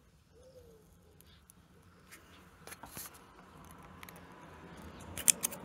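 Small metal clicks and scrapes of a feeler gauge and spanner working at an engine's valve rocker arm while the valve clearance is being set, with a few sharp clicks a little after five seconds in.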